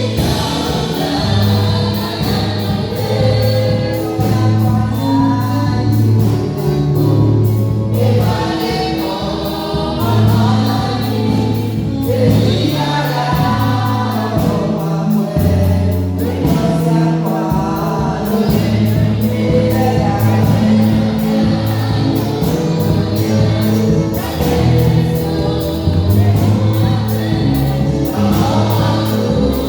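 Gospel music with a choir singing over a steady beat and a moving bass line.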